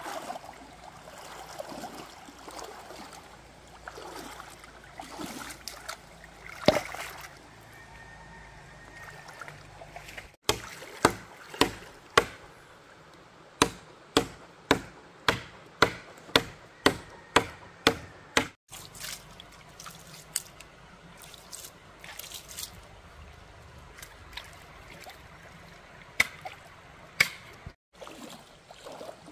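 Stream water trickling and splashing, with a regular run of about fourteen sharp knocks, roughly two a second, through the middle.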